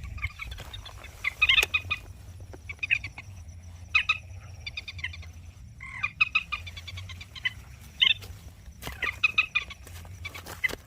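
Common moorhen calls: short, rapid runs of notes repeated about once a second, over a steady low rumble.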